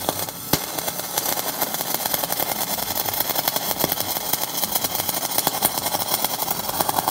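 A 110 V MIG welder's arc running a bead on aluminum, with aluminum wire under 100% argon shielding gas: a steady, fast crackle and hiss of the arc, without a break.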